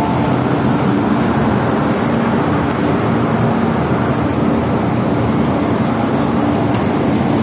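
Steady rumble and low hum of an MTR East Rail line MLR electric train standing at the platform with its doors open, the hum coming and going.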